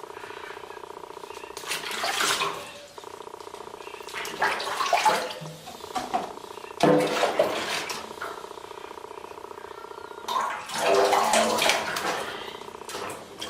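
A pet's drawn-out cries, four of them, from an animal resisting a bath, over a steady hum.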